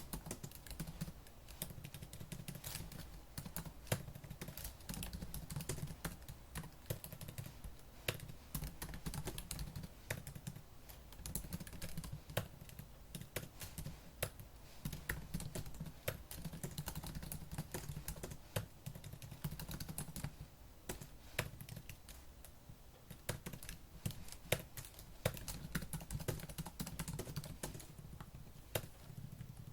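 Fast typing on a laptop keyboard: rapid key clicks in continuous runs, with occasional louder keystrokes and short pauses between bursts.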